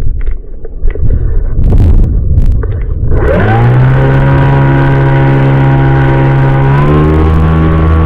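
Wind buffeting the microphone with a low rumble for about three seconds, then a steady droning tone with many overtones sweeps in and holds, changing pitch about a second before the end.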